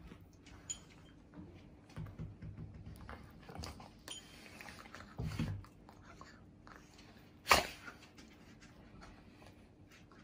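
Akita dogs play-wrestling: low grumbling growls and mouthing noises against a light rustle of bedding, with one short loud sharp sound about seven and a half seconds in.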